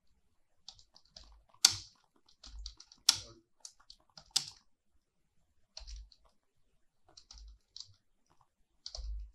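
Computer keyboard typing: uneven runs of keystrokes with short pauses, including the space bar and backspace, and three louder key strikes a little under a second and a half apart in the first half.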